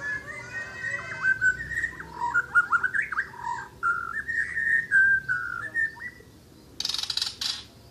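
White-rumped shama (murai) singing a long, varied run of clear whistled phrases for about six seconds. Near the end comes a short harsh, rasping burst.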